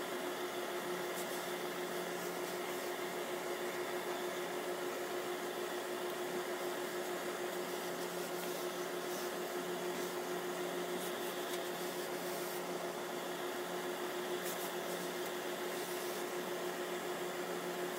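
Steady machine hum with a constant low tone, joined a few times by brief soft hisses of steam from a hose-fed tailor's steam iron pressed onto wool cloth.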